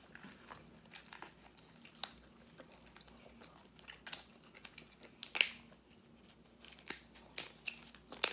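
Scattered crinkling and crackling from food being handled at the table, a string of short irregular crackles and clicks with a sharper, louder one about five seconds in.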